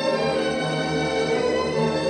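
Classical background music: an orchestral string piece with violins and cellos playing sustained notes.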